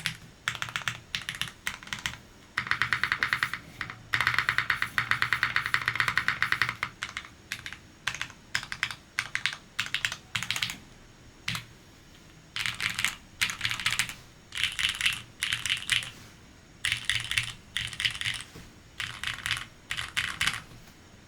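Typing on a custom 60% mechanical keyboard with lubed Gateron X switches in a full POM plate, o-ring mounted, with GMK keycaps. Rapid runs of key presses in bursts with short pauses between, the longest and fastest run in the first third.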